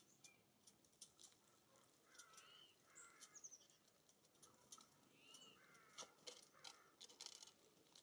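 Faint harsh, arching songbird calls, several times a few seconds apart, among sharp clicks and taps of birds pecking and landing at hanging seed feeders, the clicks coming thickest in the second half.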